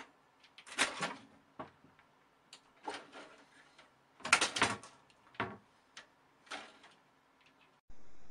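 A cat scrabbling against a curtain and a computer tower: about five separate bursts of rustling and clattering, the loudest about halfway through. Near the end a steady hiss cuts in.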